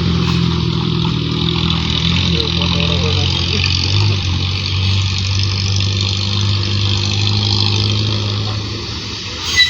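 Engine of a large road vehicle running steadily under tyre and road noise, its note shifting about four seconds in; a brief sharp sound just before the end.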